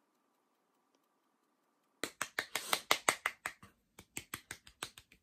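Two quick runs of sharp taps on a nearly empty makeup powder jar, about seven taps a second, with a brief pause between the runs, starting about two seconds in.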